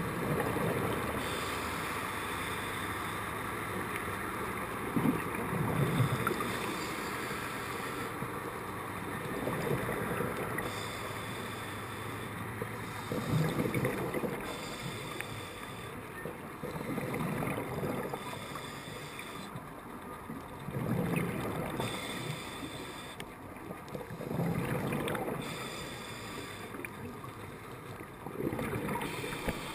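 Scuba diver breathing through a regulator underwater: a steady rushing hiss with a bubbly exhalation swelling up about every four seconds.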